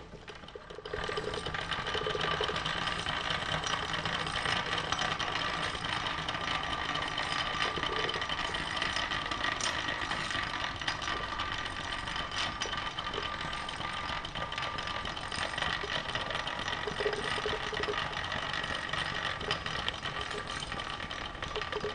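Small steam engine of a Wilesco D375 live-steam model steam roller starting about a second in, then running steadily: a fast mechanical clatter with a few steady high tones.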